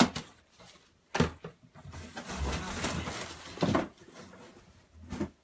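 Handling noise from a phone camera being passed between hands: irregular knocks and a stretch of rustling with a low rumble on the microphone, mixed with items and packaging being put back into a cardboard box.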